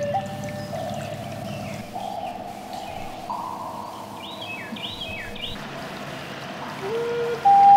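A short run of four or five quick bird chirps about four to five seconds in, over faint sustained music notes; the music swells back with louder held notes near the end.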